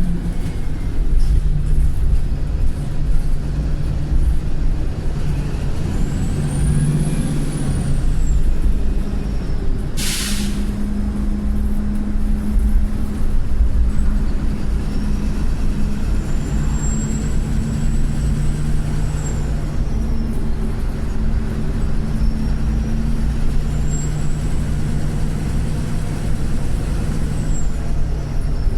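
Wright Pulsar bus engine pulling under way, heard on board. Its squealing turbocharger whistles high, rising and falling three times, which the uploader takes for a faulty, cracked turbo. A short sharp hiss of air about ten seconds in is the bus's 'sneeze'.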